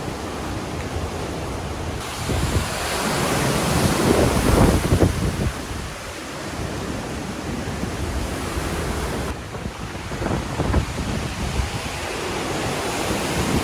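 Hurricane-force wind rushing steadily and gusting, swelling about four seconds in and again around ten seconds, with gusts buffeting the microphone.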